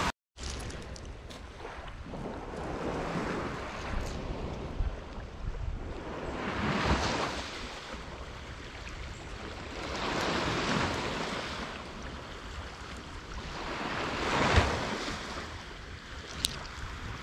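Sea waves breaking and washing up the beach, surging in four swells about every three to four seconds, the last the loudest, with wind buffeting the microphone.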